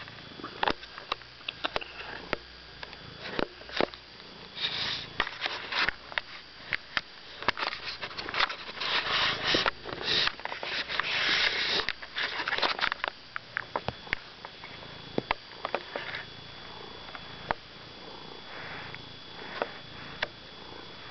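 Domestic cat sniffing right at the microphone in breathy bursts, loudest in the middle, with scattered clicks and rubbing as its fur and face touch the phone. Soft purring underneath.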